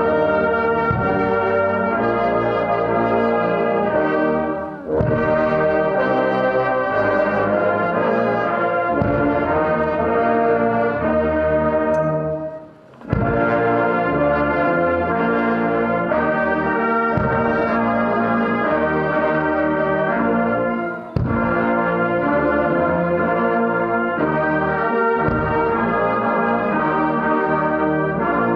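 Marching wind band of trombones, tuba, trumpets and clarinets playing in full chords, phrase after phrase, with short breaks between phrases and the longest pause about halfway through.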